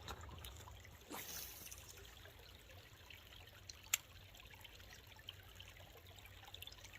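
Faint water sounds: a soft splash about a second in as a released bass goes back into the water, then light trickling, with a single sharp click near four seconds.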